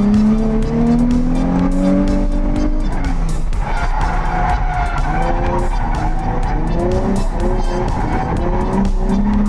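Nissan Z33 drift car's engine on a run, heard from inside the cabin. The revs climb steadily for about three seconds, drop sharply, then rise and fall several times in quick succession.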